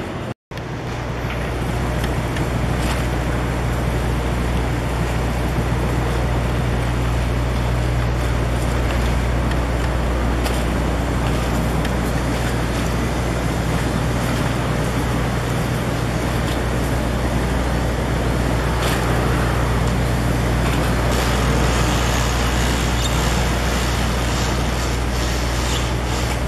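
Motorboat engine running steadily under way, a low even hum, with wash and wind noise over it. The sound drops out for an instant just after the start.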